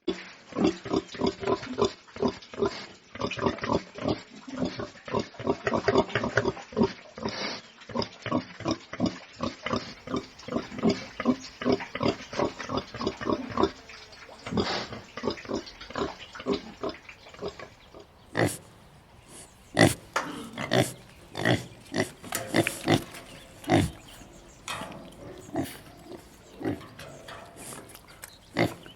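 Domestic pigs grunting in a rapid run of short grunts, several a second; about two-thirds of the way through, the grunts change to fewer, sharper ones spaced further apart.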